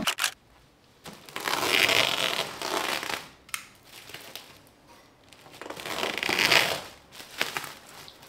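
Woven plastic shipping sack rustling and crinkling as it is gripped and moved, in two long swells with a few sharp crackles between them.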